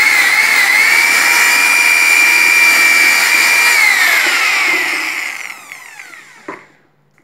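Handheld electric drill with a paddle mixer stirring sugar syrup in a plastic barrel: a loud, steady motor whine that wavers a little at first, then falls in pitch as the drill is released about four seconds in and winds down to a stop.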